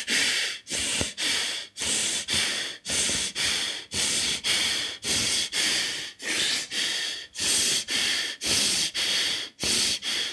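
A man laughing silently and breathlessly: a long run of sharp, hissy breaths, about two a second, with no voice in them.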